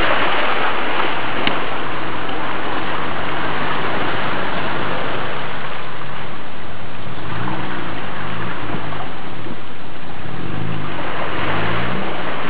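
An off-road 4x4 engine pulls through deep muddy water while water and mud splash hard against the body, most heavily at the start and again near the end. In the second half the engine revs rise and fall several times.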